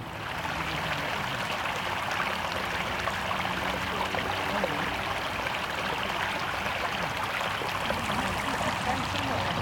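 Steady rush of flowing water, from a stream running high with floodwater.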